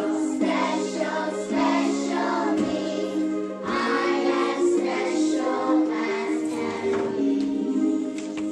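A song: steady held instrumental notes moving step by step, with a group of young children singing.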